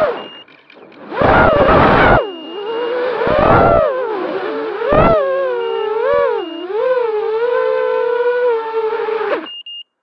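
The four DYS MR2304 2150kv brushless motors and propellers of a 250-size quadcopter whine, heard from the onboard camera. Several tones rise and fall with the throttle, with three louder throttle punches in the first half. The sound then settles steadier and cuts off suddenly near the end.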